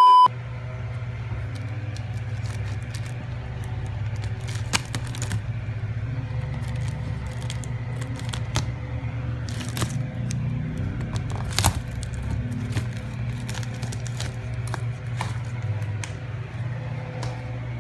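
A short steady test-tone beep at the very start. Then clear plastic packaging and cardboard are handled, with scattered crackles, clicks and scrapes over a steady low hum.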